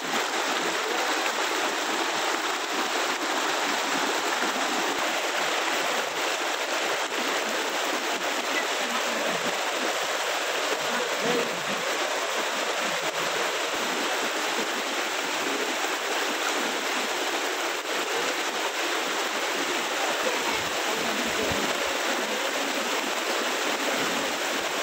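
Fast-flowing muddy floodwater rushing and churning over flooded ground, a steady, even rush of water.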